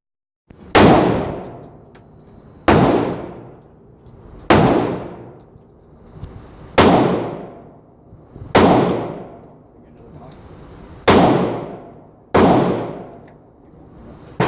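Smith & Wesson M&P 9c 9mm compact pistol firing single shots at a slow, steady pace: seven shots about two seconds apart, each trailing off over about a second.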